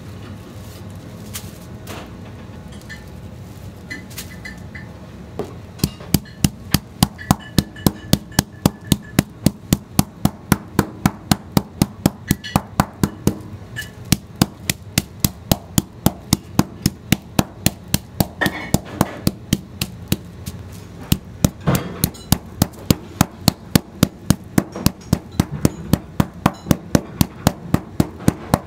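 Flat-faced metal meat pounder beating a raw sea bream fillet flat under plastic film on a counter, about three quick, even blows a second, starting about five seconds in, with two short breaks.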